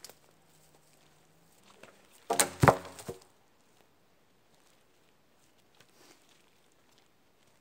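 A long dry dead wooden pole thrown down onto the forest floor, landing with a loud hollow wooden clatter and brief ringing about two and a half seconds in. Faint footsteps on moss and twigs follow.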